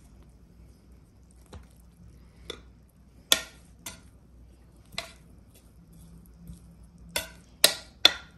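Metal spoon scooping rice and knocking against the rim and sides of a cooking pot: about eight sharp clinks at uneven intervals. The loudest comes about three seconds in, and there is a quick run of three near the end.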